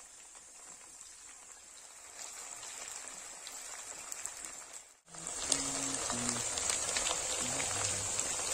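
Chicken pieces shallow-frying in hot coconut oil, a steady sizzle with fine crackling and popping. After a sudden cut about five seconds in, the sizzling is louder and denser.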